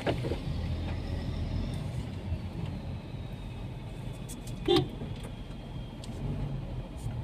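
Car cabin noise while driving slowly: a steady low rumble from engine and tyres, with faint ticks from rain on the glass. About two-thirds of the way through comes one brief, louder sound.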